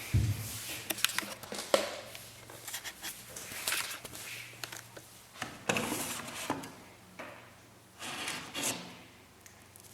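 Bosch MAXX 6 washing machine drum turning, with wet laundry tumbling and sloshing in swishes and soft thuds every second or two over a faint motor hum.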